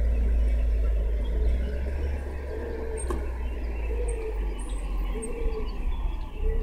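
Steady low outdoor rumble, with faint high chirps and a single sharp click about three seconds in.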